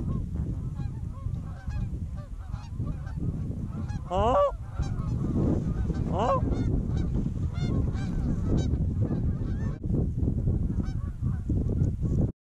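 A flock of Canada geese honking, many overlapping calls, with two louder, closer honks about four and six seconds in, over a steady low rumble.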